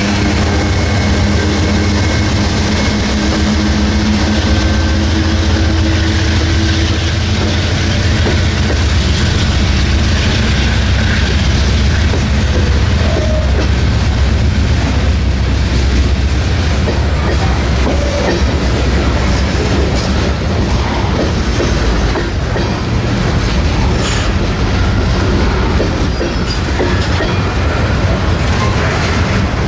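Freight train passing close by: a diesel locomotive's engine drone fades over the first several seconds, then covered hopper cars roll past with a steady clatter of wheels on rail joints.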